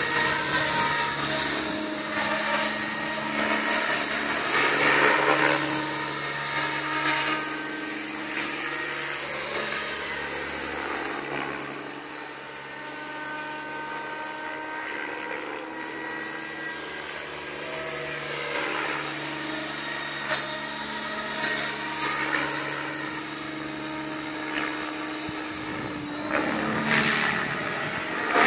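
Align T-Rex 700 radio-controlled model helicopter flying, its rotor and motor whining at a pitch that rises and falls as it passes and manoeuvres. It is loudest during the first several seconds and again near the end, and quieter in between while it flies high.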